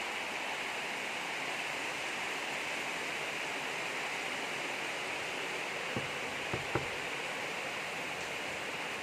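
Heavy rain falling steadily, a dense even hiss, with a few faint knocks about six seconds in.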